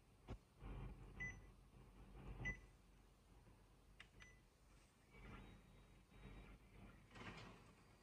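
Kyocera TASKalfa 4002i copier's control panel giving three short key beeps as the touchscreen and Start key are pressed, then the copier begins running faintly near the end.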